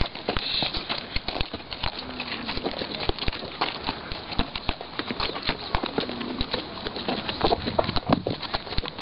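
Horses' hooves clopping on stony desert ground: a run of sharp, irregular hoofbeats, several a second, from the ridden horses.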